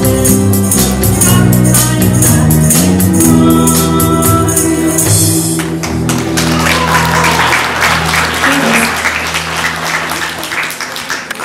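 End of a live song: a woman singing with a small band of guitars and a steady tambourine beat. About halfway through, the tambourine stops and audience applause starts while the last chord rings out; the applause then dies down.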